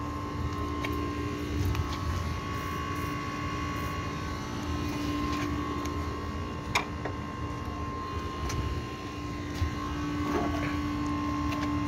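A steady machine hum with two held tones over a low rumble, and a couple of short light clicks near the middle and toward the end.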